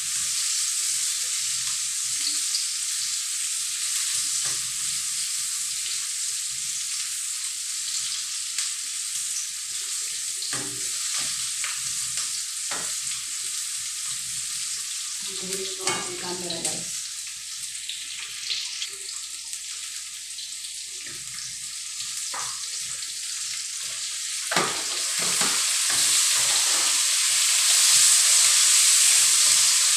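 Garlic and onions sizzling as they are sautéed in a wok over a gas burner, with a metal ladle scraping and clinking against the pan now and then. The sizzle grows louder in the last few seconds.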